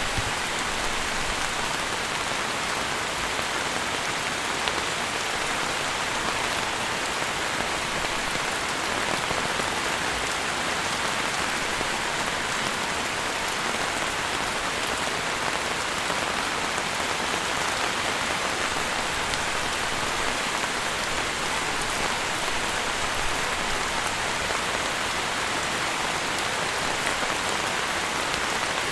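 Steady rain falling: an even hiss with fine drop ticks scattered through it, holding at the same strength throughout.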